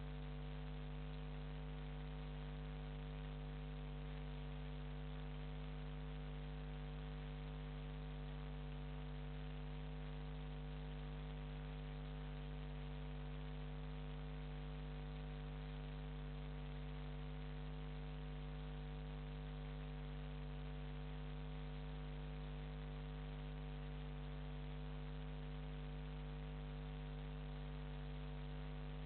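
Steady electrical mains hum with buzzy overtones and a layer of hiss, unchanging throughout; no sound of the passing boats is picked up.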